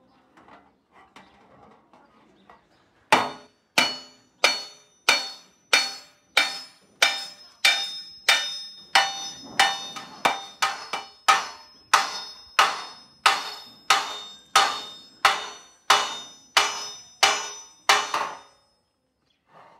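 Hand hammer striking a long copper workpiece in steady, even blows, about three every two seconds, each one ringing with a metallic tone. A few light taps come first, the hard blows start about three seconds in and stop shortly before the end.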